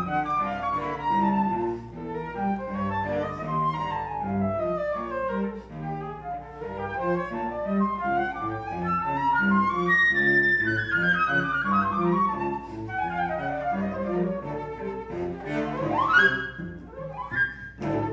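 Flute and cello duet in classical chamber music. The flute plays fast scale runs that sweep down and back up over short, repeated low cello notes. Near the end comes a burst of quick rising runs.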